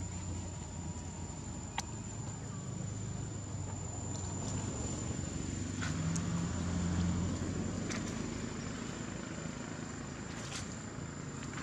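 Steady high-pitched insect drone over a low rumble, with a few sharp clicks scattered through.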